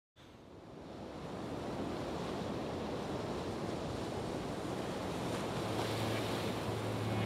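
A rushing, wind-like noise fades in from silence over the first second or two and then holds steady. A low held tone joins about five seconds in.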